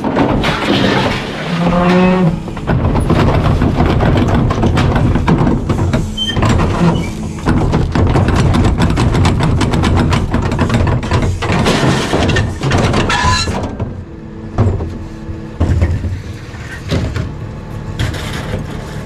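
Garbage truck rear-loader hopper being filled: trash and a metal chair dumped from a wheeled cart clatter and bang onto the steel hopper floor over the truck's running engine. The clattering dies down about two-thirds of the way through, leaving the steady engine and a few separate thuds.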